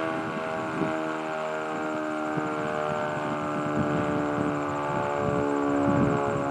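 Village outdoor warning siren (civil defense siren) sounding a steady, held tone with many overtones.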